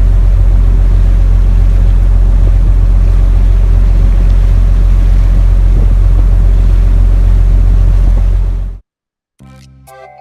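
Boat engine running steadily: a loud, deep drone under a constant rush of water and wind noise, as heard on board. It cuts off abruptly near the end, and a chiming music jingle starts.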